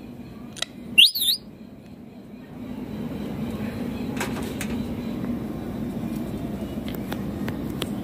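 Rose-ringed parakeet (Indian ringneck) giving one short, shrill call about a second in that swings quickly up and down in pitch. A steady low hum runs underneath from a few seconds in, with a few faint clicks.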